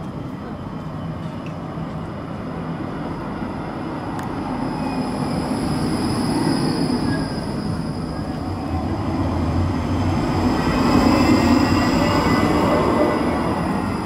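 Modern low-floor articulated tram rolling past close by: a steady rumble of steel wheels on rail with faint whining tones that slide in pitch. It grows louder twice, around six seconds in and again later on as a second tram draws near.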